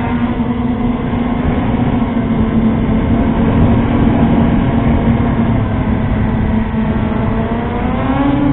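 FPV quadcopter's motors and propellers whining steadily, heard from the craft's own camera, over a rushing noise; the pitch climbs near the end.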